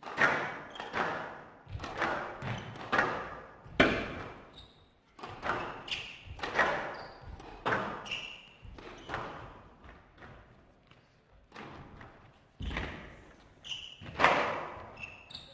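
Squash rally: a squash ball struck by rackets and smacking off the walls of a glass court, sharp echoing hits coming about every second or less. A few short high squeaks from players' shoes on the court floor come in between.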